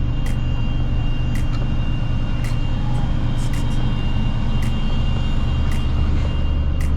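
Steady, loud rumble of heavy road traffic on a highway, with faint sharp ticks about once a second.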